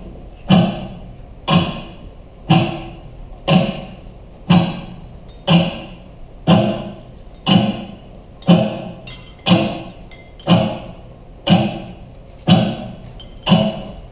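A steady percussive beat, one knock about every second, each with a short pitched ring that dies away quickly, like a struck wood block or drum.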